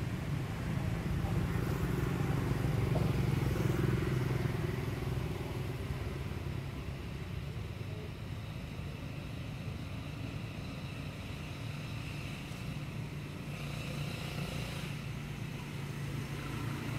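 Low, steady hum of a motor vehicle engine, swelling a little a few seconds in and then easing off.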